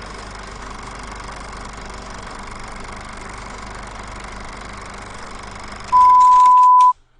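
A steady low electrical hum with faint hiss, then a loud, steady, high-pitched electronic beep about six seconds in that lasts about a second and cuts off suddenly.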